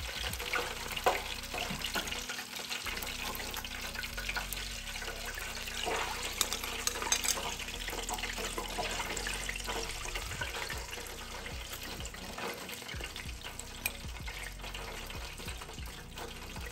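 Hot oil in an electric deep fryer crackling and sizzling as fried chicken and fries drain in baskets above it. A few sharper clicks come from metal tongs and the fryer baskets, loudest about a second in and again around six to seven seconds in.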